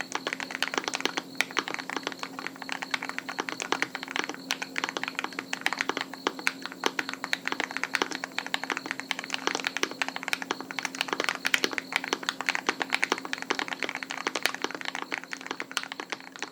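Steady, fast typing on a custom 60% mechanical keyboard with lubed KTT Red Wine linear switches in an aluminium plate, a dense run of irregular keystroke clacks. A faint steady hum lies underneath.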